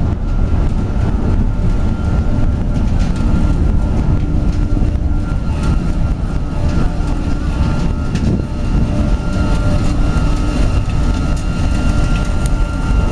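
Biomass pellet burner firing at full flame: a loud, steady rushing noise from its fan and flame, with a faint steady whine over it.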